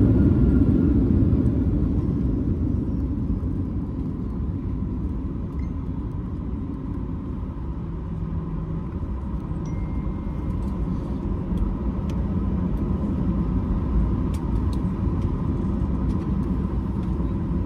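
Airliner cabin noise during the landing rollout, heard from a window seat: a steady low rumble of engines and wheels on the runway that eases off over the first few seconds as the plane slows, then holds. A few faint light clicks near the end.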